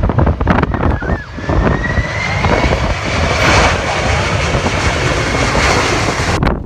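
Jet airliner passing close: a steady high engine whine that rises slightly and then holds, over a swelling engine noise that is loudest around the middle. Strong wind buffets the microphone, mostly in the first second.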